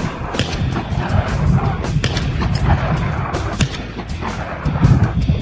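Shotgun fire at thrown clay targets, with heavy wind rumble on the microphone.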